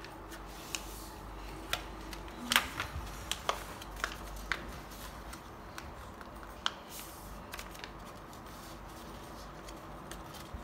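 Sheet of grid notebook paper being folded and creased by hand on a hard floor: scattered sharp crinkles and taps, the loudest cluster about two and a half seconds in, over a faint steady hum.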